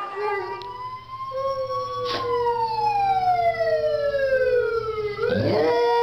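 A small dog howling in long drawn-out tones: one note is held steady while another slides slowly downward over a few seconds. Near the end there is a brief swoop, then steady tones again.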